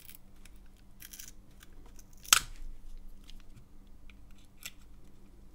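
Small pry tool scraping and clicking against the plastic case of a vape mod as its glued-in screen cover is worked loose, with one sharp snap a little over two seconds in.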